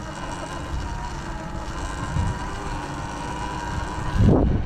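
Sur-Ron electric dirt bike under way, its motor and belt drive giving a steady whine over wind noise on the microphone, with a short louder burst near the end. The belt makes a louder sound that the rider finds not normal and suspects comes from dirt and water buildup.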